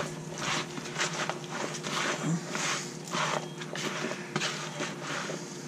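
A spatula stirring and folding thick, mayonnaise-coated turkey salad in a bowl: repeated irregular wet squishing and scraping strokes, about one or two a second, over a faint steady hum.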